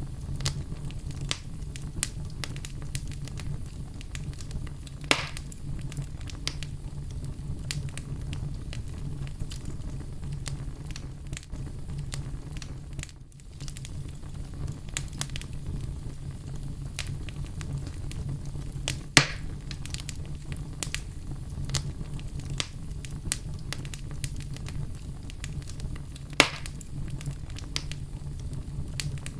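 Fireplace fire crackling with many small snaps over a steady low rumble, and three sharper, louder pops about five, nineteen and twenty-six seconds in.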